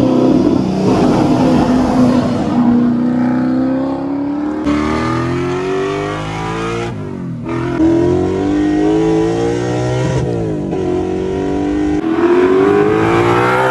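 Holden VK Commodore's 355 stroker V8 with side-exit exhaust accelerating hard, its note climbing steadily through each gear and dropping back at the shifts, several times over.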